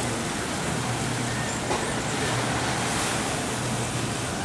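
Steady beach ambience of wind and surf, an even rushing noise with a low steady hum underneath.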